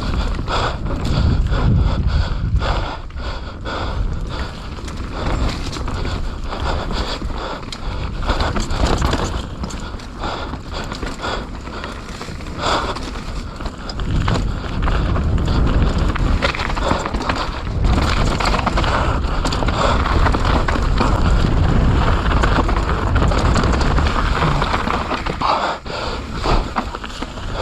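Mountain bike descending a wet dirt trail at speed: a steady rush of wind and tyre noise, with frequent clicks and clatters from the bike over bumps.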